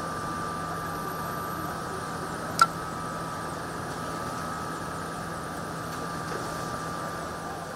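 Steady low mechanical hum like an idling engine, with a thin steady high whine over it and one sharp click about two and a half seconds in.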